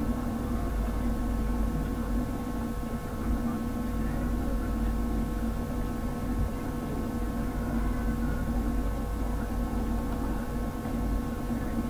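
Steady background hum with a low rumble and several faint steady tones, unchanging throughout: equipment or room noise picked up by the microphone.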